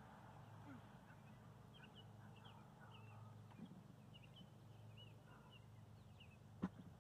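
Faint birds chirping over a quiet field, then near the end a single sharp crack of a bat hitting a softball.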